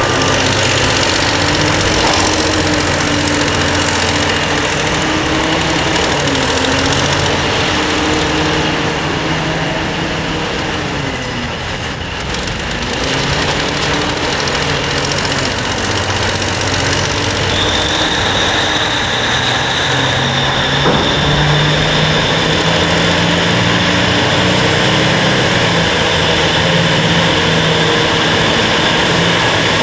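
Heavy strip-mine machinery, a coal-loading shovel and a coal haul truck, running with a dense, loud drone. Its pitch sags and recovers about twelve seconds in, and a high whine joins a little past the halfway point.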